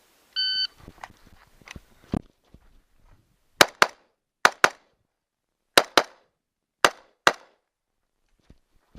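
A shot timer's short electronic beep starts the string. About three seconds later come eight gunshots in four quick pairs, each pair a fraction of a second apart.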